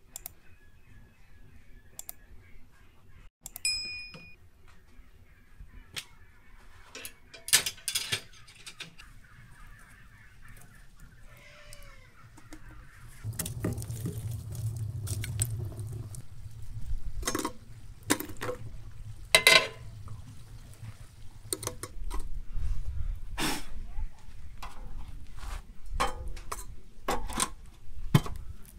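Scattered metallic knocks, clinks and scrapes as metal tongs shift burning logs in the firebox of a wood-burning cookstove, more frequent and louder in the second half, with a low rumble for a few seconds near the middle.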